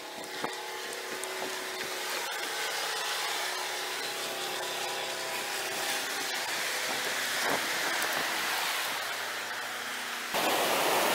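Ocean surf breaking on the beach below, a steady rushing noise that grows slowly louder and jumps up sharply about ten seconds in. A faint steady hum of several tones shows through it in the first half.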